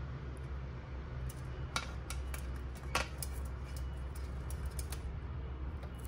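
Pacific parrotlet moving about on a stainless steel tray, giving a run of light clicks and taps on the metal. Two of them are louder, about a second apart. A steady low rumble runs under them.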